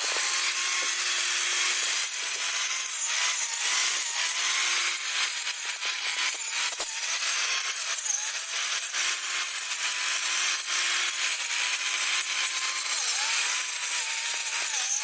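Homemade grass cutter powered by a used angle grinder's electric motor, running steadily and cutting grass, a constant hissing whir with a slightly wavering pitch.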